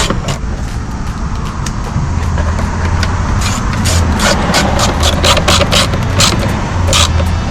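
Ratchet driving a 10 mm socket on an extension, clicking in quick runs as the tail light's two screws are driven in. A steady low hum sits underneath from about two seconds in.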